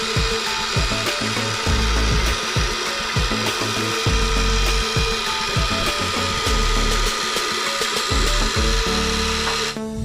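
Remote-control toy forklift's electric motor whirring steadily as it raises its forks with a concrete block.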